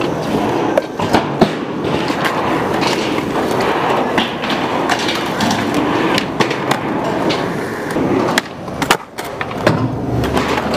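Skateboard wheels rolling on concrete with a steady hiss, broken by repeated sharp clacks of the board popping and landing during flip-trick attempts. The loudest pair of clacks comes near the end.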